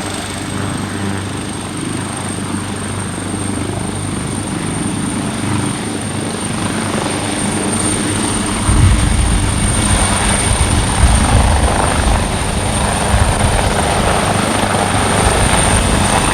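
Leonardo AW139 twin-turbine helicopter running: a steady high turbine whine over a low rotor drone. About halfway through, a deep low rumble comes in and the sound grows louder.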